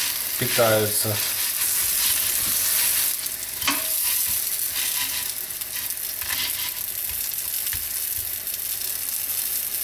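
Breaded pork cutlets sizzling steadily in hot sunflower oil in a frying pan, with a few light clicks of a metal fork against the pan as the cutlets are turned.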